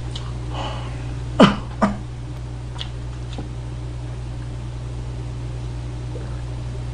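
Steady low hum, broken about a second and a half in by two short sharp sounds close together, the first sliding quickly down in pitch and the loudest of the two.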